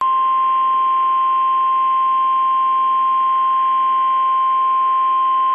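NOAA Weather Radio's 1050 Hz warning alarm tone: one steady, unbroken beep over a faint radio hiss. It signals that a warning message is about to be broadcast.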